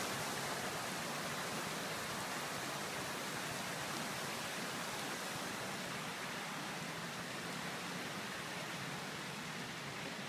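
Steady, even background hiss of outdoor ambient noise with no distinct events in it.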